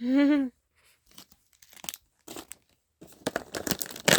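A brief hummed vocal sound, then the packaging of a Disney Doorables blind box crinkling and tearing, with sparse crackles at first and a busy run of tearing about three seconds in as the box is ripped open.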